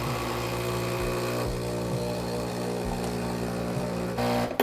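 Breville Barista Express espresso machine's vibratory pump humming steadily as it pushes a rinse of plain water through the empty group head, with water splashing into the drip tray; the rinse flushes out cleaning-tablet residue after a clean cycle. The pump stops abruptly near the end.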